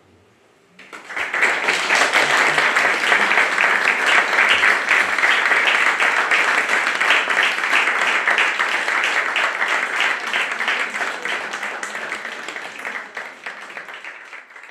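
Audience applause, breaking out suddenly about a second in after a brief silence, then slowly tapering off near the end.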